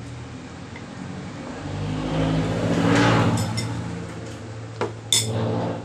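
A motor vehicle passes by, its engine rising to a peak about three seconds in and then fading. Near the end come two sharp knocks as a ceramic bowl is set down on a wooden table.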